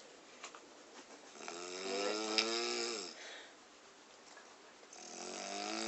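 A sleeping person snoring: a long pitched, wavering snore about a second and a half in that drops in pitch as it ends, then a quieter breath, and the next snore starting near the end.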